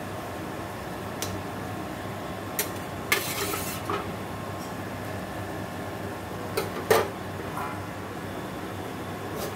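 Scattered clinks and clanks of metal kitchenware, a steel spatula and a steel plate lid, against an iron kadai of simmering koi fish curry, with the loudest clank about seven seconds in, over a steady low hum.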